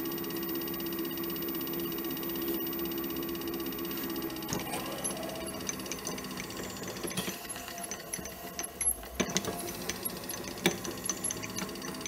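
Lathe motor running with a steady hum as the Delrin blank spins. About four and a half seconds in, a twist drill starts boring into the plastic, adding irregular clicks and scraping as chips break off.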